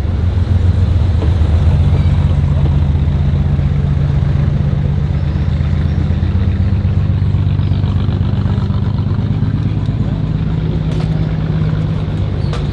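Car engine idling steadily at low revs, its low pitch even throughout with no revving.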